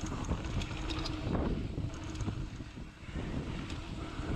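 Wind rushing over the camera microphone as a mountain bike rolls down a dirt singletrack, with tyre noise on the dirt and scattered clicks and knocks from the bike rattling over bumps.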